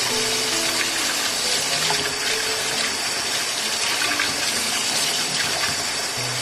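Tap water running steadily into a stainless steel sink and splashing over hands and houttuynia (fish mint) leaves being rinsed under the stream. Soft background music with sustained low notes sits underneath.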